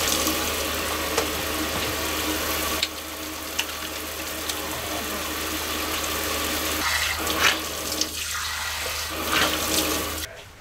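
Pull-down kitchen faucet spraying into a stainless steel sink while hands splash water onto a face, with a steady low hum under the running water. The water shuts off shortly before the end.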